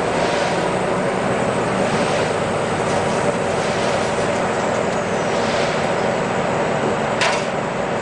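CNC lathe running: the spindle and chuck turning at speed while a tool cuts the bar stock, a steady machine noise with cutting sound mixed in. A brief sharp sound cuts through about seven seconds in.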